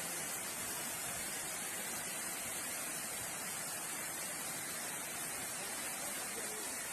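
Steady, even rushing hiss of water from heavy rain and flooding, with no breaks or single events.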